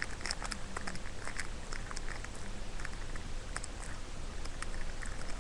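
Foam squishy toys being squeezed and handled close to the microphone: irregular soft clicks and crackles from fingers on the foam and its keychain.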